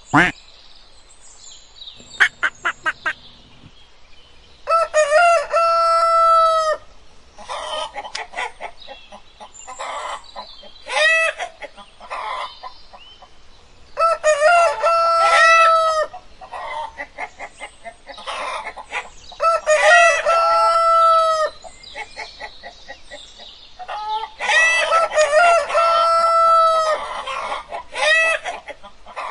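A rooster crowing four times, each crow ending in a long held note, with shorter hen clucks and calls in between.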